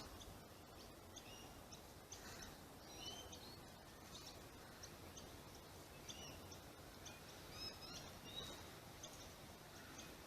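Faint birds chirping: short, high chirps and quick pitch-gliding notes repeating irregularly, over a low steady background hiss.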